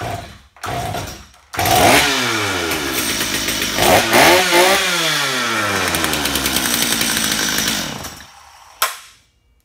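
A two-stroke chainsaw, just cleared of flooding, is pull-started with the choke off and the throttle held wide open. Two pulls of the starter cord come first; the engine catches on the third pull and runs at high revs, rising and falling, for about six seconds. It is then shut off and winds down, and a single knock follows.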